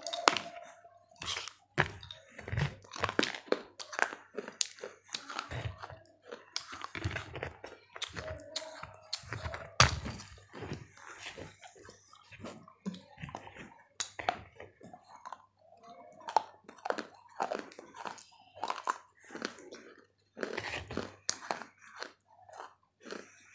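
Biting and chewing pieces of a fired terracotta pot (matki): a long, irregular run of sharp crunches as the clay breaks between the teeth.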